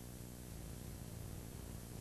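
Steady hiss and low electrical hum of videotape playback with no programme sound. The hum weakens about half a second in.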